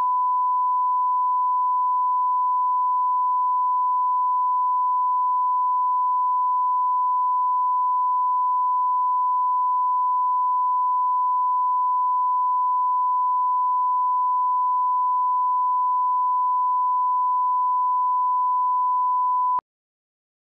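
Broadcast line-up test tone: a single steady 1 kHz sine tone at constant level, the reference for setting audio levels with colour bars at the head of a programme master. It cuts off abruptly near the end.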